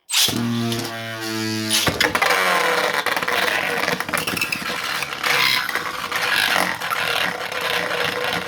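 Two 3D-printed Beyblade tops launched into a stadium with a brief whir from the launchers. They then spin and clash, a dense scraping whir with a steady hum and frequent sharp knocks as they collide.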